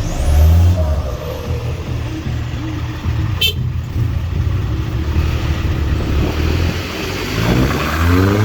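Audi A3 2.0 TFSI turbocharged four-cylinder running through a loud exhaust pipe, with a steady low rumble. A sharp click comes a little before halfway, and near the end the revs climb.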